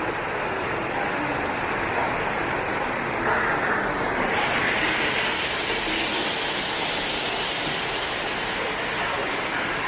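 Steady hiss of falling rain. About four seconds in it turns brighter and fuller.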